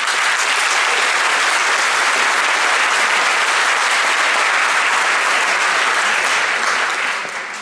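Large audience applauding: a dense, steady clatter of clapping that starts suddenly and dies down near the end.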